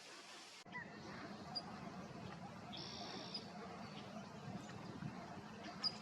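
Wild birds calling over faint outdoor background noise: a few short high chirps, and one held high call lasting about half a second, about three seconds in.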